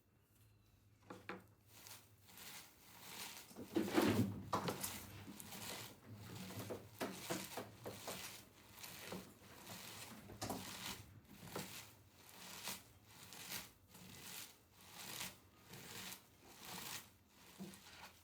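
Repeated soft rustling and scraping strokes, about one or two a second, from hands at work on kitchen food preparation.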